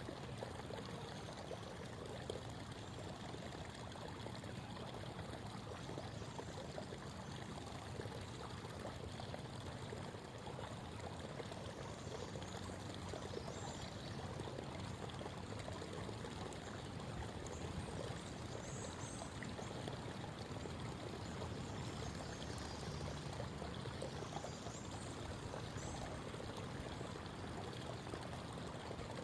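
Creek water babbling and trickling steadily over stones, with a few faint high bird chirps now and then.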